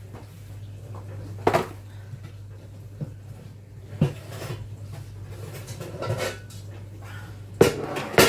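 Knocks and clatter of metal baking tins and bakeware being lifted out of a kitchen cupboard, a handful of separate bangs with the loudest pair near the end, over a steady low hum.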